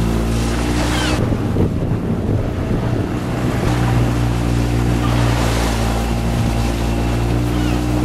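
Motorboat engine running steadily under way, heard from inside the boat's canvas-covered cabin, with the rush of water and wind over it. The rush eases for a couple of seconds about a second in, while the engine keeps on.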